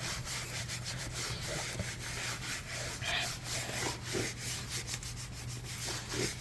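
Microfiber towel rubbing back and forth on a hardwood floor in repeated hand strokes, wiping cleaner residue from under the toe kicks. A steady low hum runs underneath.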